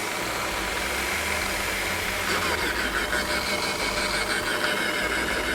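Drill press motor running steadily with a high, steady whine; about two seconds in, a rougher, rhythmic whirring joins it as the tooth-sharpening grinder runs.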